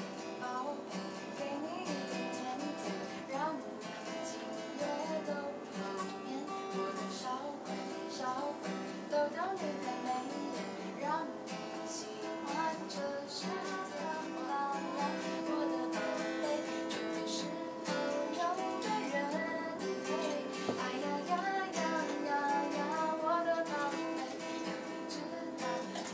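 Acoustic guitar strumming steadily, with a melody line sliding between notes over it: an instrumental passage of a song with no singing.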